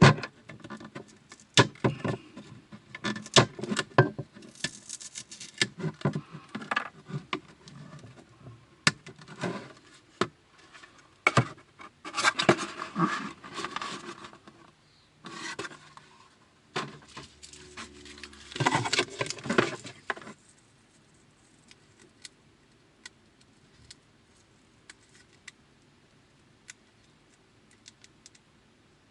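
Irregular handling noise: rustling, rubbing, clicks and knocks of objects being moved and worked by hand. It stops about twenty seconds in, leaving only a few faint ticks.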